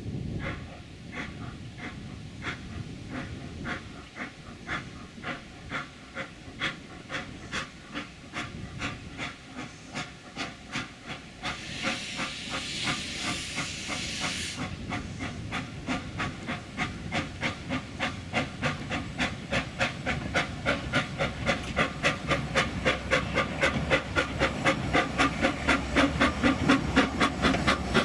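Narrow-gauge steam locomotive starting a train: its exhaust chuffs start at about one a second and quicken to about three a second, growing louder as it draws near. Escaping steam hisses loudly for about three seconds midway.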